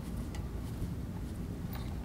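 Quiet room tone with a steady low hum and a few faint ticks and rustles of fingers handling a thin shielded cable's stripped wires and foil shield.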